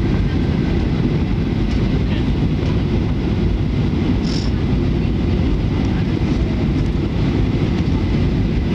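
Steady low cabin noise of a twin-engine jet airliner on final approach to landing: engine and airflow rumble heard from inside the cabin at a window seat. A brief faint click sounds about four seconds in.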